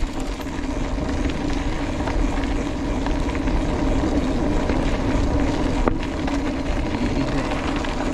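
Mountain bike rolling fast along a gravel fire road: a steady hum and hiss of knobbly tyres on the gravel, with wind rumble on the handlebar microphone and a single sharp click about six seconds in.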